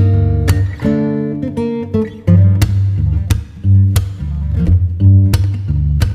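Background music: plucked and strummed acoustic guitar with a bass line and sharp rhythmic accents.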